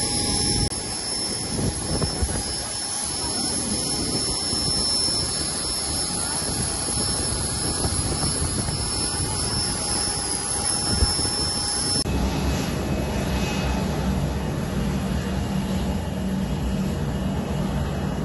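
Jet aircraft turbofan engines running: a steady rush with a thin high whine. About twelve seconds in, after a cut, the sound changes to a lower, rumbling rush of a jet heard from farther off on the runway.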